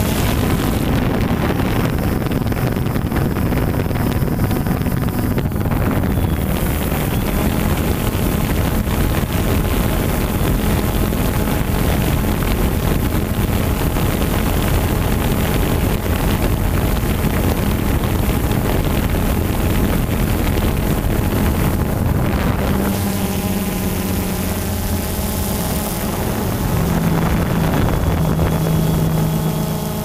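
DJI Phantom 2 quadcopter's motors and propellers buzzing steadily, mixed with wind rushing over the camera's microphone. The motor pitch shifts up and down in the last few seconds.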